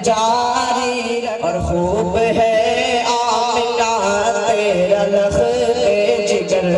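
Naat performance heard through stage loudspeakers: an ornamented melody with wavering pitch over a steady low drone.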